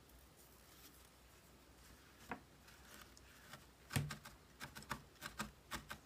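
A single knock about four seconds in, then a felting needle stabbing wool into a foam pad in quick, even pokes, about four a second.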